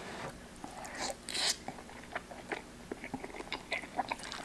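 Close-miked mouth sounds of a person chewing a mouthful of creamy vegan spaghetti carbonara: many small wet clicks and smacks, with a short louder rush of noise about a second and a half in.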